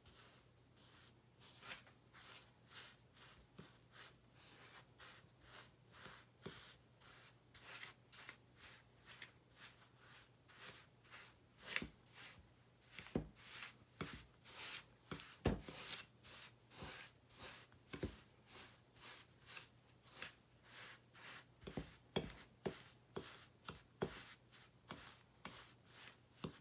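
Metal fork mashing butter into sugar and breadcrumbs in a ceramic bowl, its tines clicking and scraping against the bowl in a steady rhythm of about two strokes a second, some strokes louder than others.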